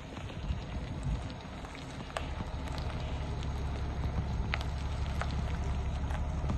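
Diesel-pusher motorhome's engine running with a low rumble that grows louder as the coach creeps closer, with scattered sharp clicks above it.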